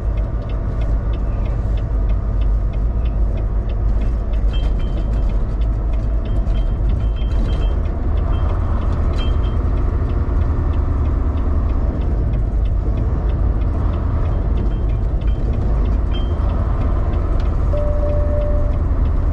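Semi-truck running down a steep grade, heard inside the cab: a steady low engine and road rumble. A short beep sounds near the end.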